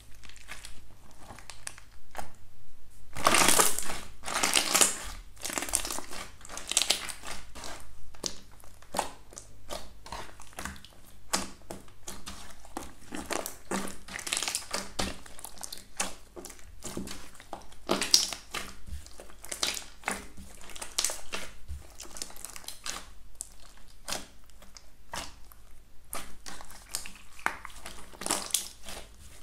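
Clear glittery slime being pressed and kneaded by hand: a dense, irregular run of wet crackles, loudest a few seconds in.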